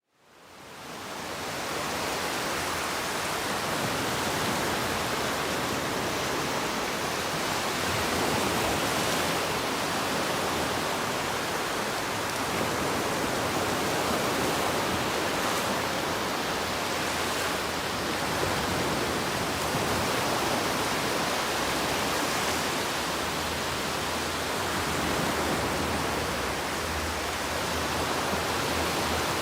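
Ocean waves washing onto a beach: a steady rushing surf with gentle slow swells in level, fading in over the first second.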